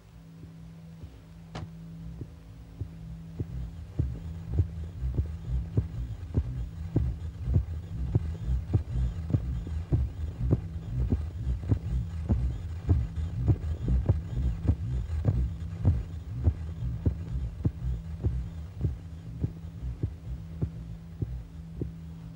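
Heartbeat: low, soft thuds about twice a second over a steady low hum, fading in over the first few seconds and then beating on. A single sharp click sounds about a second and a half in.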